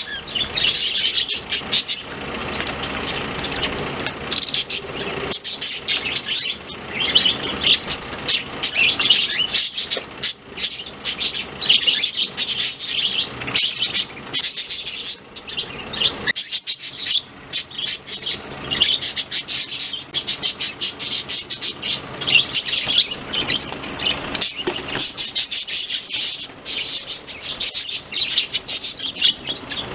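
Several budgerigars chirping, many short, high calls overlapping one another without a break.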